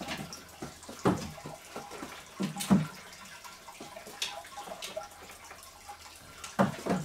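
Plastic knocks and clatters as a dog noses and paws a plastic ring against a toy basketball hoop's basket. There are several separate knocks, the loudest a little under three seconds in and another near the end.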